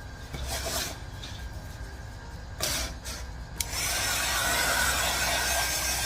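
A few brief rustling handling sounds, then about four seconds in a handheld electric hot-air blower switches on and runs with a steady rushing whir, drying the glue under paper freshly adhered to a wood panel.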